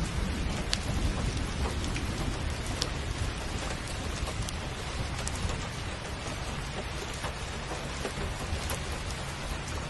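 Steady rain falling, with scattered sharp ticks of single drops and a low rumble underneath.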